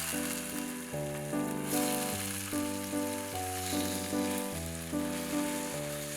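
Food sizzling in oil in a frying pan, a steady hiss that starts suddenly, over light background waltz music with a regular beat.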